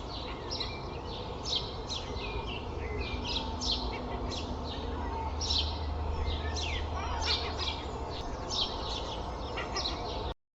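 Dawn chorus: many small birds chirping and trilling at once over a steady low traffic rumble. The sound cuts off suddenly near the end.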